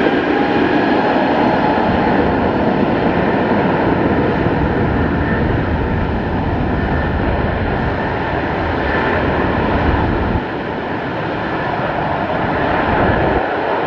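Air France Boeing 777-300ER's twin GE90-115B turbofans at takeoff power during the takeoff roll: a loud, steady jet roar with a faint high whine, easing slightly about ten seconds in.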